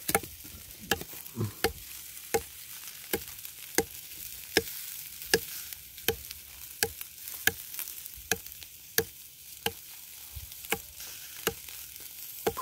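Meat sizzling on a wire grill over wood embers: a steady hiss, with sharp clicks at a very regular pace, a little more than one a second.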